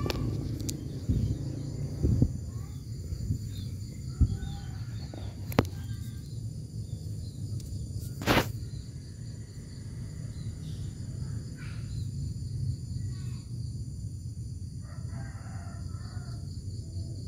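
Outdoor ambience: a steady low rumble with a few sharp knocks, the loudest about eight seconds in, and a bird calling briefly near the end.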